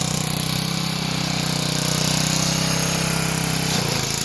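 Sears Lil' Poppy rider mower's small engine running steadily, with a brief dip in its note near the end.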